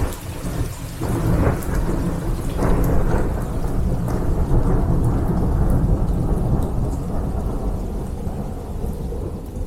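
Thunder rumbling over steady rain. The rumble is strongest in the middle and eases off toward the end.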